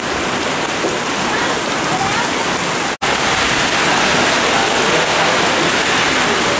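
Heavy tropical downpour: a dense, steady hiss of rain pouring down. It drops out for an instant about three seconds in and comes back slightly louder.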